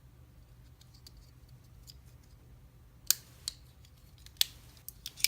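Several sharp metallic clicks and snaps from small metal hand tools being handled at a padlock: one about three seconds in, a louder one a second later, then a quick run of three near the end.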